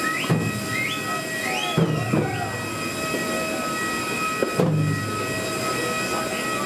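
Large Okinawan eisa drums struck in a few heavy, spaced beats, with short rising shouts from the drummers in the first couple of seconds, over a steady high-pitched machine whine.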